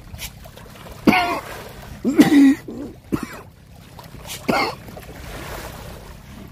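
A person's short wordless vocal sounds, throat clearing and coughing: four brief bursts, the loudest about two seconds in, over a faint steady background hiss.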